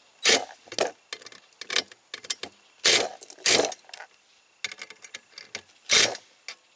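Cordless impact driver giving the final tightening to small screws in an aluminium solar-panel mounting bracket, in about six short trigger bursts of under half a second each, with small clicks of handling between them.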